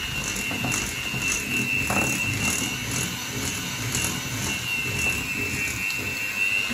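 Electric hand mixer running, its beaters churning flour into a butter, sugar and egg dough: a steady high motor whine with faint regular ticks.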